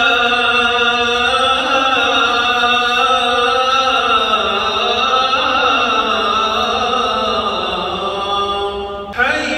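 A solo voice chanting one long, drawn-out phrase with slow, ornamented glides in pitch. A new phrase starts near the end.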